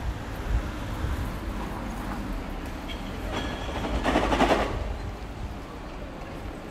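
Street noise with a steady low rumble, and one vehicle passing, loudest about four seconds in, then fading.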